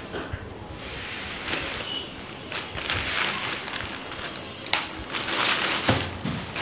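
Plastic courier mailer bag crinkling and rustling as it is cut and torn open by hand, with a sharp click about two-thirds of the way through and a dull thump near the end.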